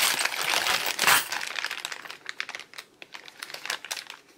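A clear plastic zip bag holding metal keyring clasps crinkling and clicking as it is handled and pulled open. The sound is dense for about the first second, then thins to scattered small clicks.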